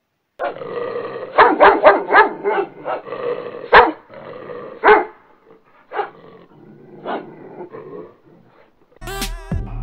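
Large Pakistani bully (bully kutta) dog barking: a quick run of loud barks in the first couple of seconds, then single barks about a second apart that grow fainter. Music cuts in just before the end.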